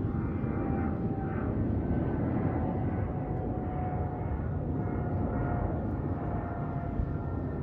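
Jet engine rumble of a Boeing 777-300ER's twin GE90 turbofans from an airliner flying overhead, with a thin whine slowly falling in pitch. The sound eases slightly toward the end.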